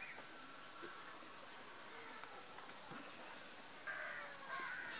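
Faint outdoor ambience of birds calling and chirping, with one louder call about four seconds in.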